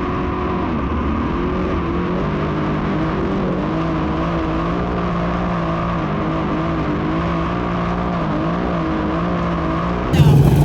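Dirt modified race cars' engines running at low, steady revs, several at once, as the field circles slowly under caution. The sound gets abruptly louder just before the end.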